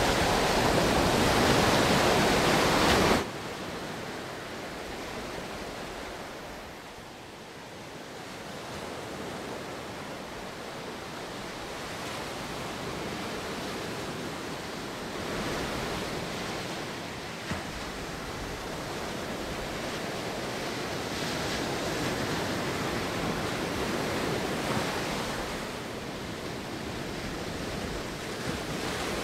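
Steady rushing noise, like an ambient sea-and-wind soundscape. It is louder for about the first three seconds, drops off suddenly, then swells and fades slowly.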